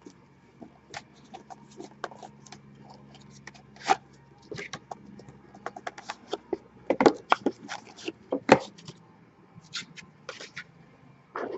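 Irregular crinkling, rustling and clicking of a trading card box and its wrapping being handled and opened, busiest and loudest about seven to nine seconds in, over a faint steady low hum.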